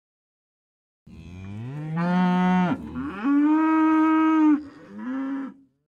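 A cow mooing three times: a long low moo that rises and then holds, a higher held moo, and a short last one.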